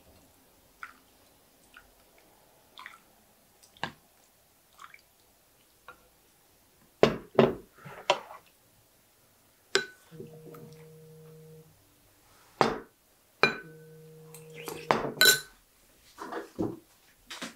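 Dishes and utensils clinking and knocking, with sharp clinks coming thicker from about halfway through. A steady low hum sounds twice, for about a second and a half each time.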